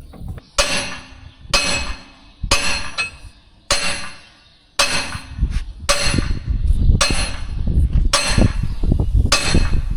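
Sledgehammer blows on a steel bolt, about one a second, each a sharp metal-on-metal strike with a short ring. The bolt is driving a stuck hex shaft through the clutches of a corn head, a little at a time.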